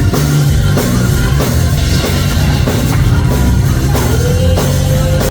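Loud live band music with drums, bass and a steady beat, cutting off suddenly at the end.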